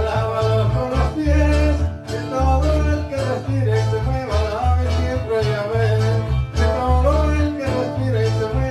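Live band music: an acoustic guitar and an electronic keyboard play an instrumental passage, with a bass line stepping from note to note underneath.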